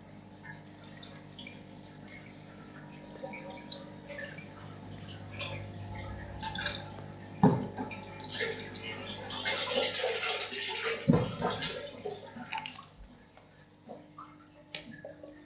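Water splashing and dripping in an aquarium at feeding time, loudest from about eight to twelve seconds in, with a couple of knocks, over a steady low hum from the aquarium equipment.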